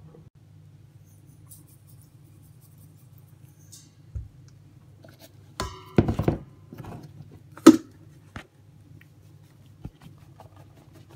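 Kitchen handling: a few knocks and clanks of containers against a stainless steel mixing bowl, the loudest a ringing clank about six seconds in and a sharp knock a little later, over a low steady hum.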